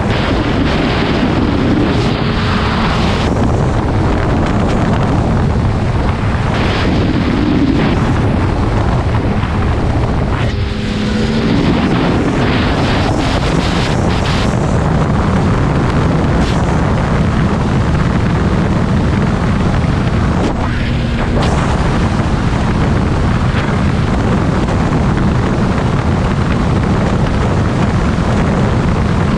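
Snowmobile engine running at speed across open snow, heavily buffeted by wind noise on the microphone. The wind dips briefly about ten seconds in, letting the engine note come through.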